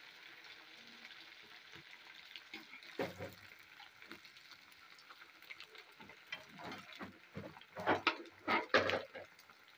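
Battered chicken drumsticks deep-frying in hot oil in a metal wok, a steady sizzle. A slotted metal spoon stirs them, knocking once about three seconds in and scraping and clattering against the pan several times near the end.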